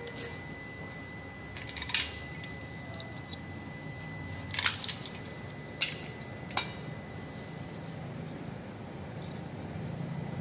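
Sharp metallic clicks and clinks as parts and tools are handled against a car's alloy manual gearbox casing: one about two seconds in, then three more close together a little past the middle, over steady background noise.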